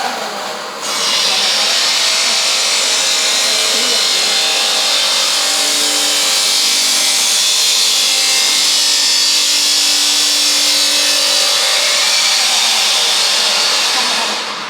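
A woodworking machine cutting wood: a loud, steady cutting noise that starts about a second in and stops shortly before the end.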